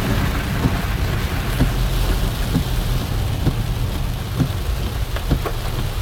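Heavy rain beating down on a car, an even hiss over a steady low rumble, with a short sound repeating about once a second.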